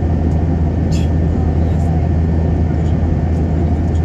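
Steady cabin drone of an Airbus A321 in flight, heard inside the cabin by the wing: the low hum of its IAE V2500 engines under the rush of air past the fuselage. A brief high tick sounds about a second in.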